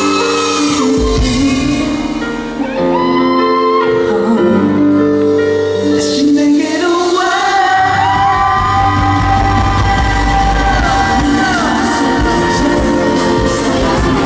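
Live pop music: a man sings into a microphone over a loud amplified band backing, holding long notes that bend in pitch in the second half.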